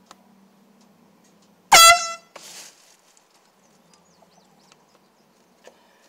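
Handheld canned air horn giving one short, loud blast of about half a second, nearly two seconds in, its pitch sliding up as it starts; a brief hiss follows.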